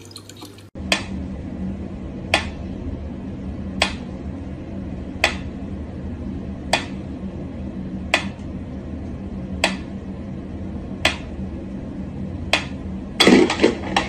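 Mechanical pendulum metronome ticking at a slow, even beat: ten sharp ticks about one and a half seconds apart, starting about a second in. A short, louder burst of noise comes near the end.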